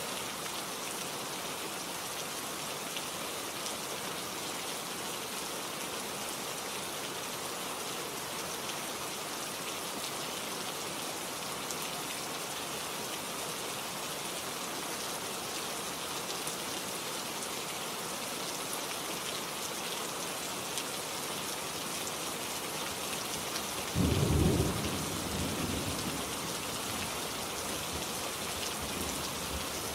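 Steady rain falling, a constant hiss. About four-fifths of the way through, a sudden loud, low rumble of thunder breaks in and dies away over a few seconds.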